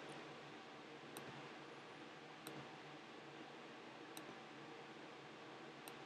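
Four faint, sharp computer mouse clicks, spaced one to two seconds apart, over a steady low hiss of room tone.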